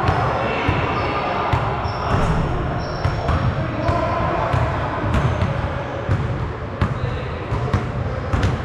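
Basketball bouncing during play on a gym court, with sharp impacts scattered through, and players' voices in the background.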